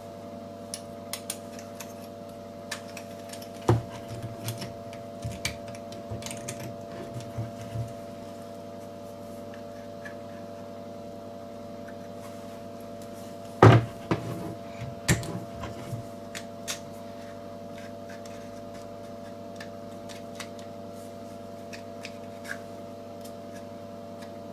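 Scattered clicks and knocks of a small brushed drill motor and its gearbox being handled and fitted back together, the loudest knock about halfway through. A steady low hum runs underneath.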